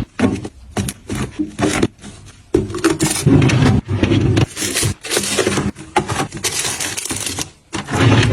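Objects and packaging being handled and set down: an irregular run of clicks, taps and rustles.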